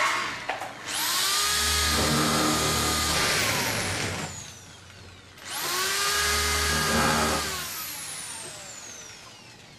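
Corded electric drill run twice against a metal wall panel, each run lasting about three seconds: the motor winds up quickly, holds, then spins down with a falling whine. A sharp click comes just at the start.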